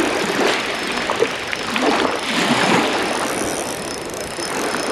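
Small spinning reel being wound against a hooked fish, its handle and gears giving a fast ticking whirr, with small waves washing over shingle.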